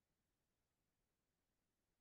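Near silence: the audio is muted or gated between speech, with nothing audible.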